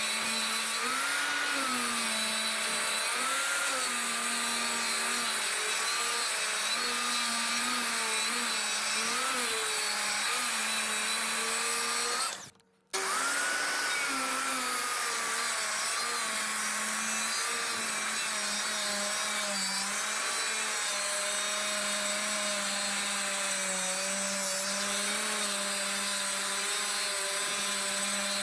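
A power tool's motor running steadily, its pitch wavering slightly, with a brief cut-out about halfway through.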